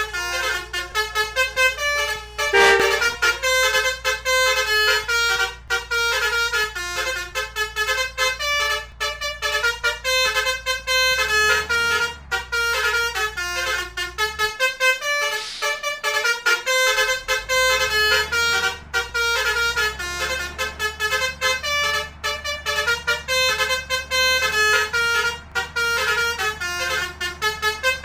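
Basuri-type telolet musical air horn playing a continuous, quick melody of short notes, over a low steady hum.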